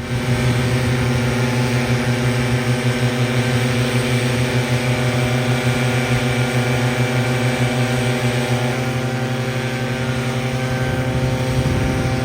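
Echo PB-9010T backpack leaf blower's two-stroke engine running steadily at a constant speed, an even engine hum under a dense rush of blown air.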